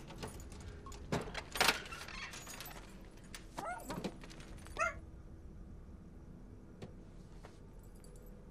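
Keys jangling and the trunk lid of a sedan unlocking and opening, with a sharp click about a second and a half in. A puppy then whimpers twice, at about four and five seconds in.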